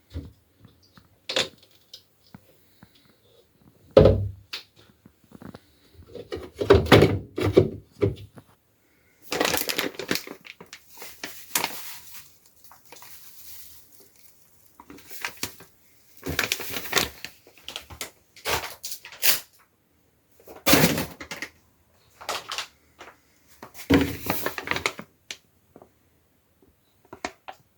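Irregular rustling of a bed sheet being spread into a washing machine drum, with a sharp knock about four seconds in and a few smaller bumps and clatters as it is handled.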